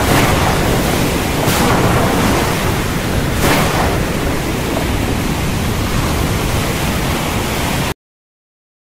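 Loud rushing storm noise of wind and sea, swelling briefly about a second and a half and again three and a half seconds in, then cutting off suddenly near the end.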